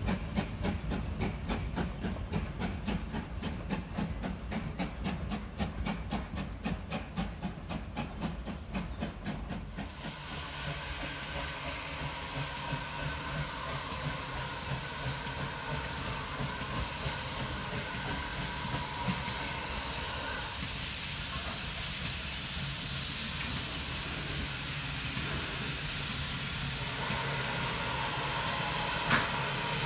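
Steam locomotive: a fast, regular beat for about the first ten seconds, then a steady hiss of escaping steam that starts suddenly and carries on.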